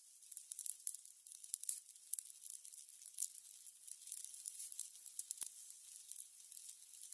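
Candles burning with an irregular crackle: many small pops over a faint sizzling hiss, with one sharper pop about five and a half seconds in.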